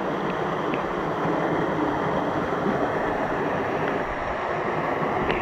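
Steady rush of a waterfall close by.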